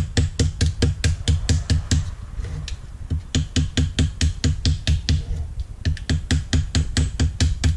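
Small hammer giving light, quick taps, about five a second, on gasket paper laid over a carburettor flange, cutting a gasket against the metal edge. The tapping pauses briefly twice, once about two seconds in and once about five seconds in.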